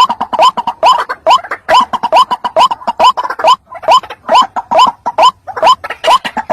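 White-breasted waterhen (ruak-ruak) lure call: a rapid, unbroken series of harsh notes, about two to three a second, each rising sharply in pitch.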